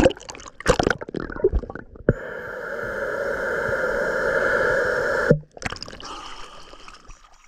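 Water sounds: gurgling and splashing clicks, then a steady rushing noise for about three seconds that cuts off suddenly.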